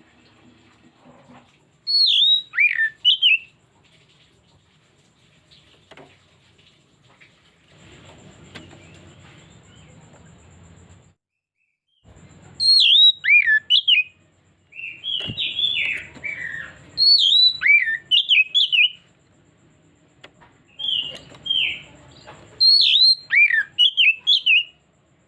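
Oriental magpie-robin (kacer) singing its varied repertoire in several loud bursts of quick, sharply rising and falling whistled phrases, with short pauses between them.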